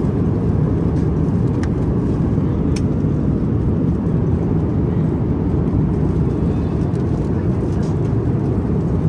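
Steady, loud low rumble of a jet airliner, heard from inside the cabin.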